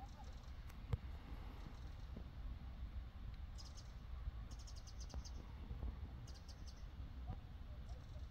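Quiet pondside ambience with a steady low rumble. There is a single sharp click about a second in, and three short bursts of rapid, high chirping from a little before halfway, the longest a quick run of about seven ticks.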